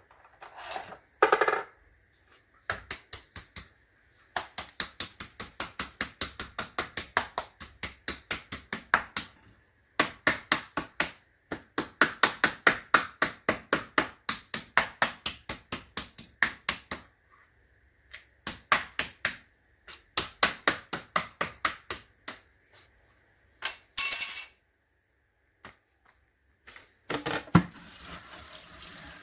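Meat mallet pounding raw chicken breast on a plastic cutting board: rapid runs of blows, about four or five a second, broken by short pauses, as the meat is flattened and tenderized. A brief clatter comes near the end.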